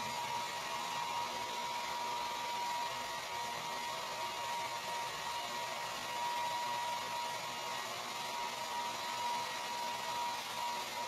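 Handheld electric hair dryer running steadily: a constant airy rush with a thin, steady whine.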